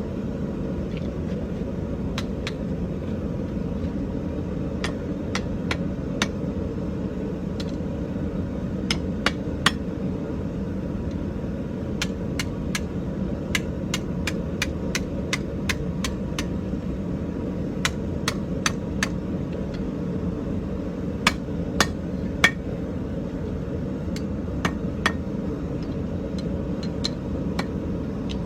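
Hand hammer striking hot iron on an anvil while the two tines of a forged BBQ fork are spread out: scattered sharp blows, some in quick runs, over a steady low roar.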